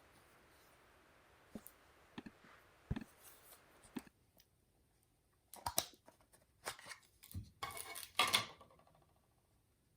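Packaging and small parts being handled: a few scattered clicks and taps in the first four seconds, then a denser run of rustling and clicking from about five and a half seconds in, loudest near the end of that run.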